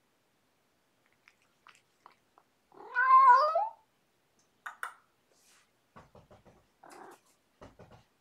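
A domestic cat meows once, a loud, rising, wavering call lasting about a second, followed by faint scattered clicks and taps.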